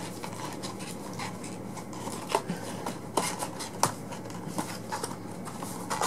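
Paper craft pieces handled and put into a small papercraft box: soft rustling and rubbing with a few scattered light taps and clicks.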